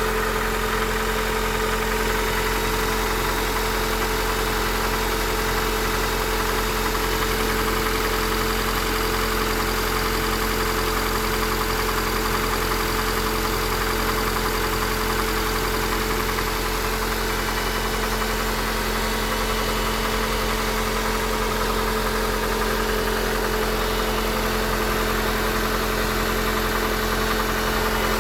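Eighth-generation Honda Accord engine running at a steady speed with a knocking noise. The owner says the knock is worst when cold and still comes through once warm, even though the valves have been adjusted.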